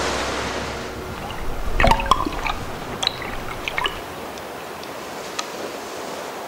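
Surf washing over rocky tidal shallows: a steady hiss of churning sea water, with a cluster of bubbling gurgles, pops and drips between about two and four seconds in.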